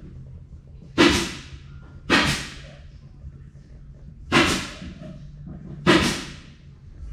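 Four quick rasping pulls of adhesive tape being torn off the roll, each sudden and fading within half a second.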